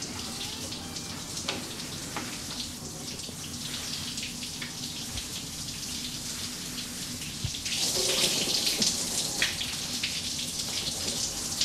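Steady hiss of water, like rain or running water, becoming louder about eight seconds in.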